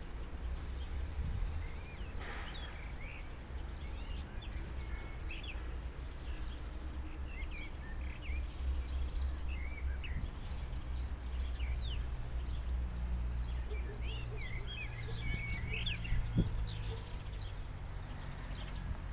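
Several small songbirds chirping and singing in short, quick calls, over a steady low rumble.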